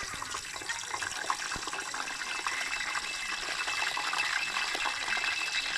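Hot cooking oil sizzling and crackling as a small test piece of food fries in it, starting suddenly and growing a little louder. The sizzle shows the oil is hot enough to fry.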